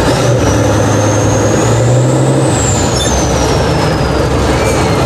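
Tatra 815 6x6 trial truck's diesel engine working hard under load, its revs climbing and then easing off about two and a half seconds in. A high whine rises and falls with the revs.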